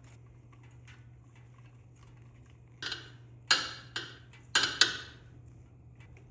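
A few sharp clicks and knocks, about five in two seconds, as the fasteners of a motorcycle's decorative engine cover are handled and spun on by hand.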